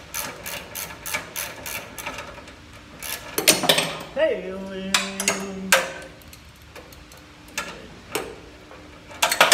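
Ratchet wrench clicking in quick, even strokes, about four to five clicks a second, as a bolt is run in on a riding mower's starter ground strap. From about three seconds in come a few louder, irregular metal knocks and a short wordless vocal sound.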